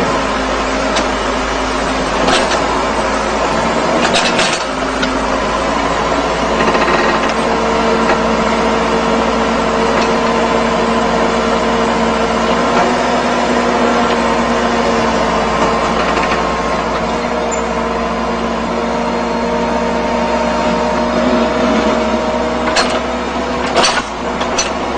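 Construction machine engine running steadily under load, with a few sharp knocks about two and four seconds in and twice near the end.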